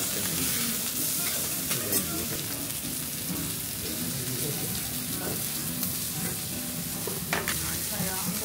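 Food sizzling and frying in hot fat: a steady hiss with no pause, with faint low murmur beneath it.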